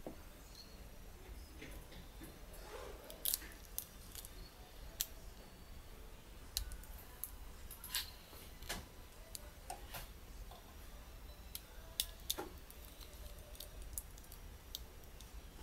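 Scattered small clicks and taps of a Nikon Coolpix S02 compact camera's plastic and metal parts being handled and worked with small screwdrivers during disassembly, irregular, with the sharpest clicks about three, eight and twelve seconds in.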